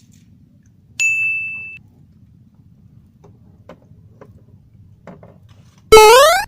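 A single clear bell-like ding about a second in, ringing on one tone and fading over most of a second. Near the end comes a loud, steeply rising whistle glide, like a slide-whistle sound effect.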